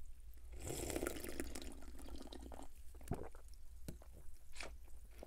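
Close-up sipping of Dr Pepper over ice cubes from a glass: about two seconds of slurping fizz starting half a second in, then a few short soft clicks.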